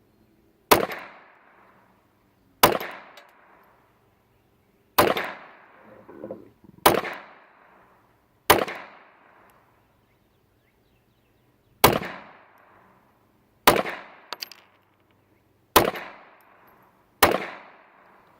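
Nine single shots from a Ruger Mark II .22 LR semi-automatic pistol, fired one at a time about one and a half to three seconds apart. Each is a sharp crack with a short echo trailing off.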